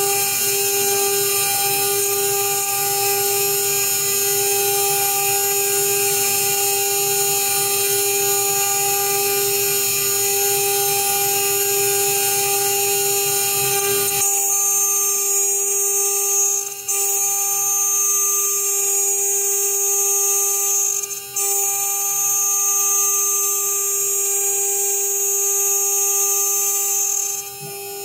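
CNC router spindle running at 12,000 RPM, its 3 mm carbide endmill milling half-inch polycarbonate: a steady whine made of several even tones over a high hiss. The low rumble under it drops away about halfway through, and the sound dips briefly twice after that.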